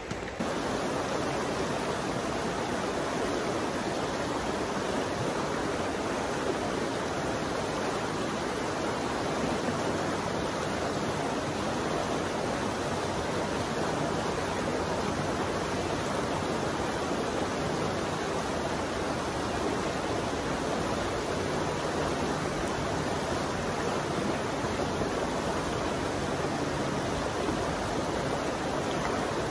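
River water rushing steadily, an even noise with no change in strength.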